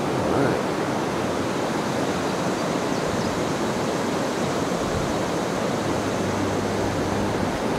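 Steady rush of river water tumbling over rocky rapids.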